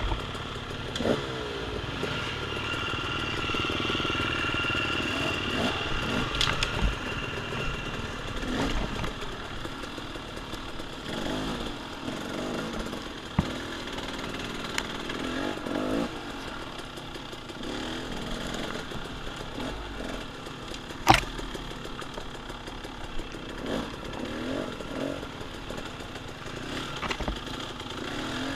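Dirt bike engine running and revving up and down over and over as it is ridden along a woods trail, with occasional sharp knocks, the loudest about two-thirds of the way through.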